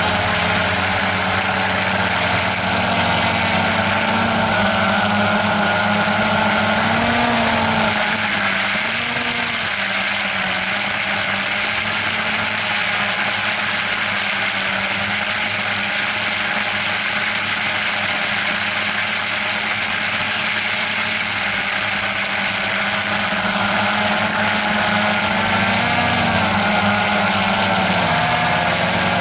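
Drone's electric motors and propellers buzzing steadily, the pitch bending up and down now and then as the motor speed changes, with a high whine that fades out about eight seconds in and returns near the end.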